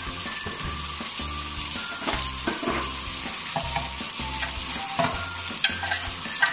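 Noodles sizzling in a hot metal wok as they are stir-fried over high flame and tossed with a slotted spatula. A few sharp clicks of the spatula against the pan come through, the strongest about five and a half seconds in.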